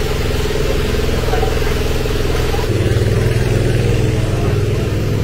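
Steady, loud machine drone, engine-like, with a low hum and overtones that change abruptly about halfway through. Faint crowd voices sit underneath.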